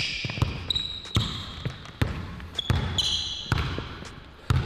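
A basketball being dribbled on a hardwood court, its bounces coming about twice a second and not quite evenly, with a few short, high sneaker squeaks.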